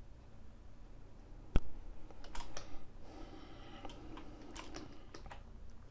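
Computer keyboard keys clicking in scattered presses: one sharp click about one and a half seconds in, a quick cluster of clicks just after, then a few single clicks.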